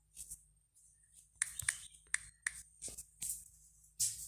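Key-press clicks of typing on a phone's on-screen keyboard: short, sharp clicks at an uneven typing pace, about eight to ten in all.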